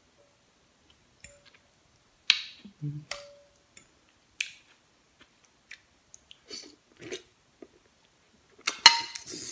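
Eating stewed turkey necks: a metal fork clinks and scrapes against glass dishes while the tender meat is pulled off the bone, with chewing between. Several sharp clinks, one about three seconds in ringing briefly, and the loudest cluster of clinks near the end.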